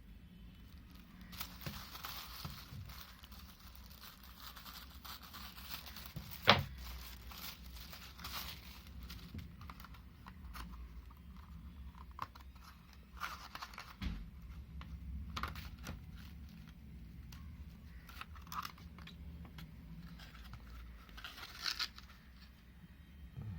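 Packaging being torn open and handled, with irregular rustling and crinkling, and one sharp click about six and a half seconds in.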